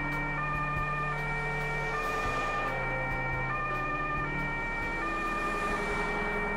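Two-tone emergency-vehicle siren switching back and forth between a high and a low tone, over steady road and wind noise.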